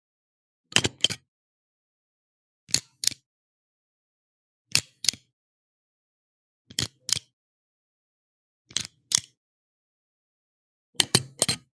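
Stapler being pressed again and again: each stroke is a quick pair of sharp clicks, the last one three, coming about every two seconds, six times over, with silence between.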